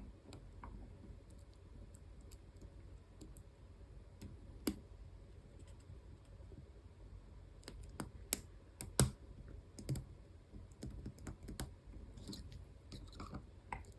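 Lock pick and tension wrench working the spring-loaded sliders of an EVVA ICS high-security cylinder: faint, scattered small clicks and ticks, the sharpest about a third of the way in and just past the middle, as sliders and pins set and drop.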